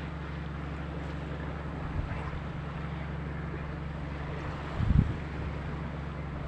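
Boat engine running with a steady low drone, with wind noise on the microphone and low thumps about two and five seconds in.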